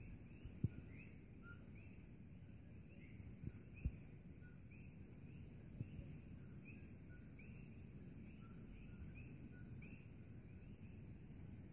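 Chorus of coqui frogs calling, their two-note "co-qui" calls with a rising second note overlapping several times a second. A steady high-pitched whine runs underneath, and a few soft low thumps come through.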